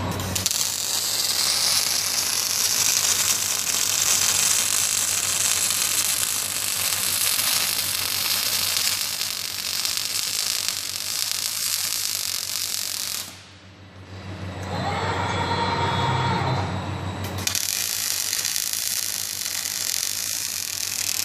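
Robotic arc welding: the welding arc gives a steady, loud crackling hiss that stops about 13 seconds in. After a few seconds of a quieter whirring tone, the arc strikes again about 17 seconds in and runs on.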